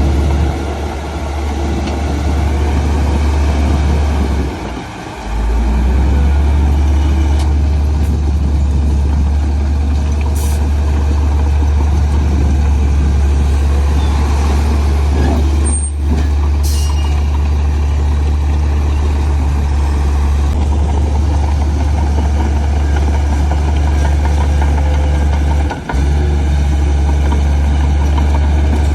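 Heavy earthmoving diesel engine running steadily with a deep rumble. Its sound drops away briefly twice, and two short sharp hisses come around the middle.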